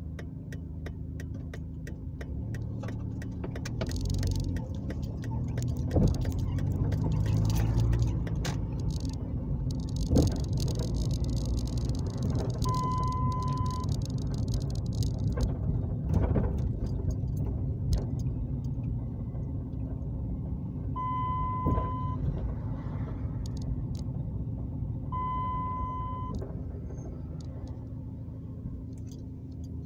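Steady road and engine noise heard from inside a moving car, with scattered clicks and rattles. Three short, steady beeps of about a second each sound near the middle and twice toward the end.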